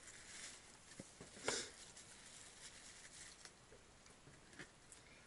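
Near silence with a few faint, scattered clicks and taps; the loudest comes about a second and a half in.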